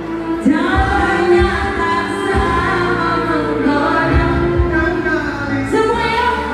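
A woman sings an Indonesian pop song through a microphone and PA, over backing music with a steady low beat.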